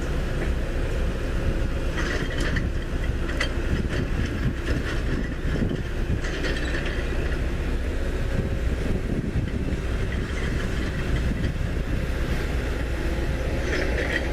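Road roller running with a steady low rumble, with a few light clicks or clanks scattered through.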